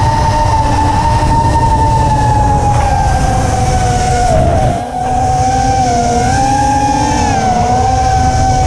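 FPV quadcopter's brushless motors (HGLRC Aeolus 2306.5, 1900 kV) spinning Gemfan Hurricane 51433 tri-blade props, giving a steady high whine whose pitch rises and falls a little with the throttle, over a low rumble. About halfway through the whine drops briefly and then picks up again.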